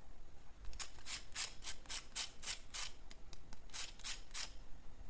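A knife sawing through a crisp, fried brick-pastry (dyoul) roll: a run of sharp crackling crunches, about five a second, starting about a second in and stopping near the end.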